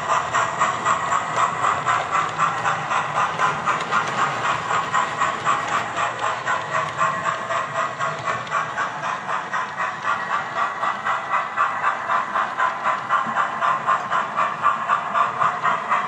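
Hornby TTS sound decoder in an OO-gauge A4 4469 Gadwall model locomotive playing steam exhaust chuffs and hiss through its small onboard speaker as the model runs. The beat is steady, about three chuffs a second.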